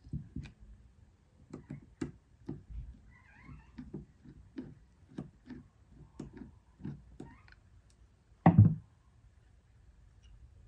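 A small straight-edge screwdriver clicking and tapping against the plastic cap and metal of a spinning-reel handle knob as the cap is pried off, in light clicks about two a second. One louder thump comes near the end.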